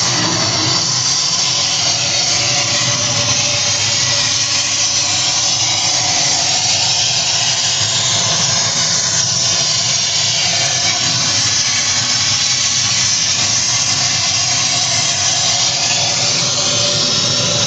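Gas torch flame hissing steadily as it is played along the slotted iron core of an induction motor.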